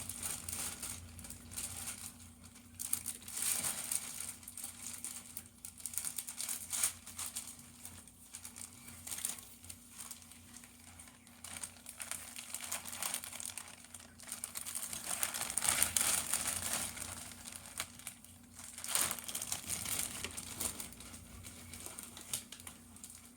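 Packing material being crumpled and crinkled by hand, rustling on and off with several louder stretches.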